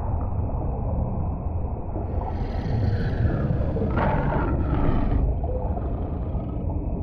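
Sound-designed underwater rumble, deep and muffled. A harsher, brighter sound swells in about two seconds in, comes in strongest about four seconds in and cuts off shortly after five seconds.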